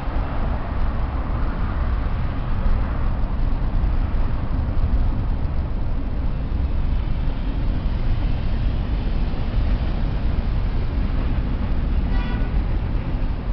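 Steady low rumble of road traffic passing at an intersection, mixed with a double-stacked intermodal freight train rolling by on the crossing beyond.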